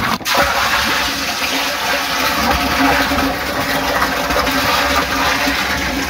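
Steady rush of water running into a plastic water tank for poultry drinking lines, with a faint steady hum underneath.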